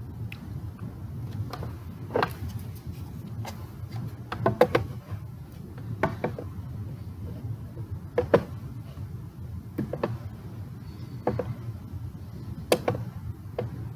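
Steady low hum of a large empty room, broken every second or two by irregular sharp knocks and clicks.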